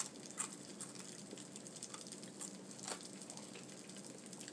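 Faint sizzling with scattered small crackles from hot, freshly fried food left to cool.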